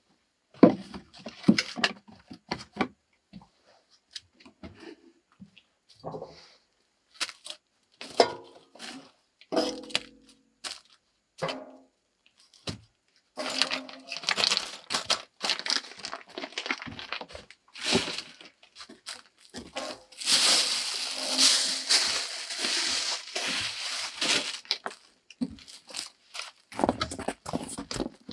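A run of separate knocks and clatters as wood and tools are handled, then a long stretch of plastic packaging crinkling and tearing, loudest about two-thirds of the way through.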